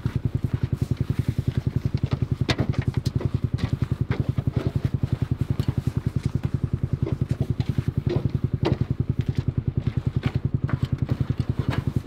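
A vehicle engine idling close by, a steady low pulsing throughout, with scattered clicks and knocks over it.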